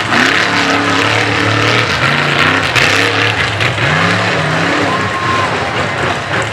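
Mega mud truck's engine revving hard through the mud bog pit, its pitch rising and falling again and again as the driver works the throttle.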